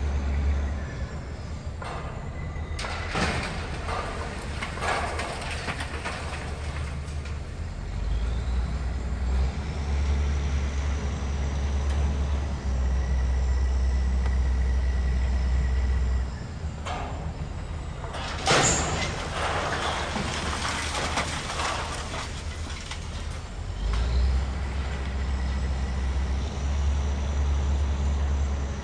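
Heavy demolition machinery running at a building demolition, a steady low engine rumble with two stretches of noisy crashing and rattling, about three seconds in and again near the middle, typical of concrete and steel debris being broken and dropped.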